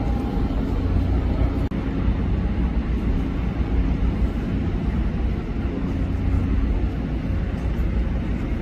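Steady low rumble of an engine running, with a faint steady hum on top and a brief dropout about two seconds in.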